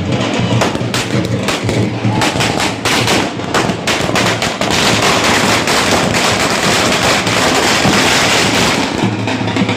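A string of firecrackers going off on the ground in rapid bangs, which run together into a dense, continuous crackle from about halfway through.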